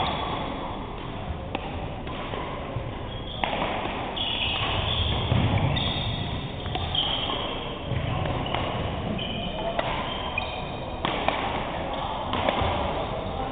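Badminton doubles rally: sharp racket strikes on the shuttlecock and sneakers squeaking and thudding on the wooden court, echoing in a large hall.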